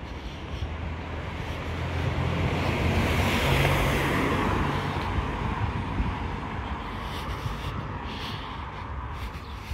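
A motor vehicle passing along the street: tyre and engine noise swells to a peak about three and a half seconds in, then fades away over the next few seconds.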